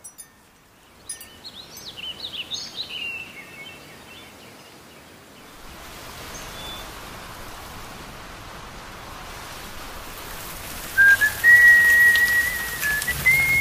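Birds chirp in short, gliding calls. Then a steady hiss of rain builds. About eleven seconds in, a loud whistled melody enters over the rain, opening the song's intro.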